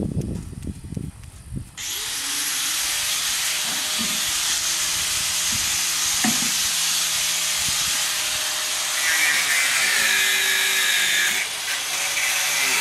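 A steady, loud hiss that sets in about two seconds in and runs on evenly, with a faint machine-like hum beneath it. Before it starts there is uneven low rumbling.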